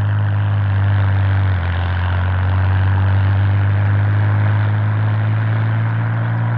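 Helicopter hovering with a load slung beneath: a steady engine and rotor drone with a strong low hum, which shifts slightly about one and a half seconds in.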